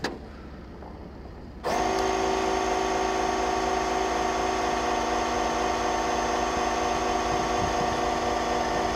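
Onboard electric air compressor of an Air Lift air-bag suspension switching on suddenly about two seconds in, then running steadily at an even pitch while it fills the truck's rear air bags toward the 35 psi setting.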